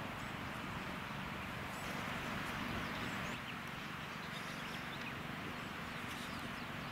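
Steady outdoor background noise, an even hiss, with a few faint bird chirps over it.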